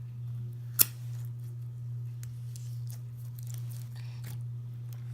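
Clear jelly-cube slime being handled, giving a sharp click about a second in and faint scattered small clicks, over a steady low hum.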